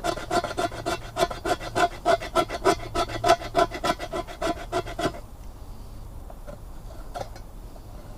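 A knife blade scraping a stick of fatwood (resin-rich pine) in quick, even rasping strokes, making shavings and dust for fire tinder. The strokes stop suddenly about five seconds in, leaving only a few faint clicks.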